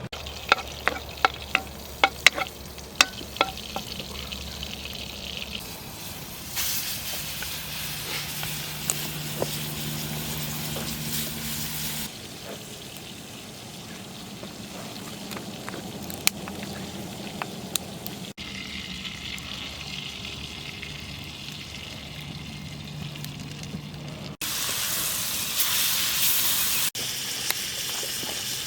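Food sizzling in a pan over a campfire, in several short shots that change abruptly from one to the next. A run of sharp cracks or ticks stands out in the first few seconds.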